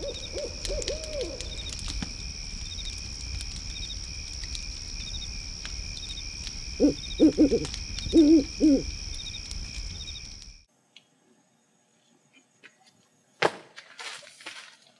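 Night ambience: an owl hooting in two short runs of calls, one near the start and one about seven seconds in, over a steady high drone of insects that chirp about twice a second. The whole layer cuts off suddenly after about ten and a half seconds. A few sharp scuffs or footfalls follow near the end.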